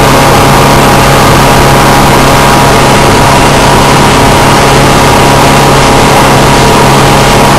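Motorboat engine running steadily at speed while towing a water skier, very loud, with a constant rush of noise over it.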